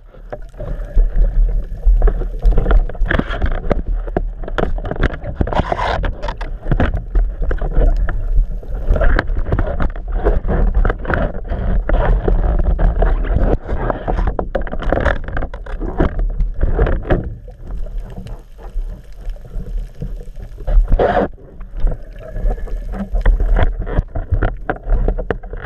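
Muffled underwater noise heard through a GoPro's waterproof housing: a steady low rumble of moving water with irregular swishes, knocks and scrapes as the diver swims and handles the speargun, and a louder knock about 21 seconds in.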